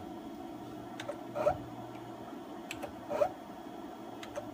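Z-axis stepper motor of a CNC X2 mini mill jogging the head in small increments: a brief rising whir about every second and a half, three times, each about half a second after a light click, over a steady low hum. It is a backlash test, stepping the Z axis with 16 thousandths of backlash compensation set.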